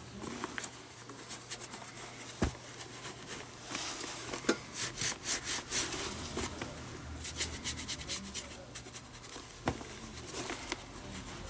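Leather laces rubbing and rustling as they are pulled through the lace holes of a leather baseball glove's fingertips during relacing, in many short strokes. Two light knocks sound, one about two and a half seconds in and one near the end.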